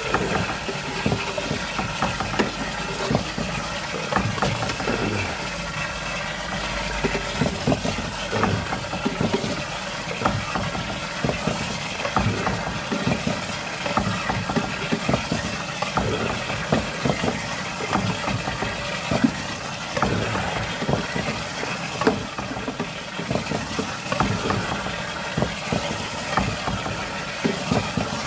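An engine idling steadily, with many irregular clicks, knocks and rattles over it.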